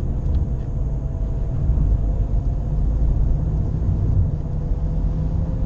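Nissan Qashqai J11 cabin noise while accelerating: a steady low rumble with a droning hum. The owner believes the hum comes from a worn wheel bearing.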